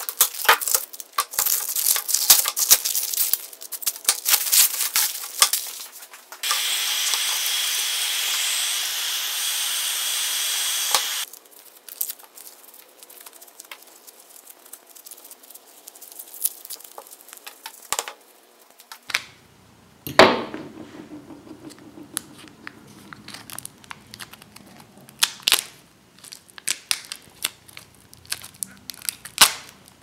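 Handling noise of a resin casting being worked out of a metal cookie-cutter mould: dense crinkling, tearing and clicking at first. Then a steady hiss for about five seconds that stops abruptly, and later scattered light clicks and one sharp knock.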